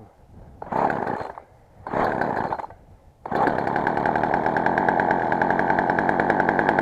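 Poulan Pro 262 two-stroke chainsaw being started: two short bursts of sound, then about three seconds in the engine catches and runs steadily at a fast idle. The saw has already been warmed up and the choke is off.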